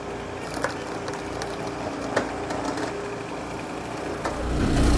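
Gasoline engine of a hydraulic log splitter running steadily, with a few sharp knocks of wood.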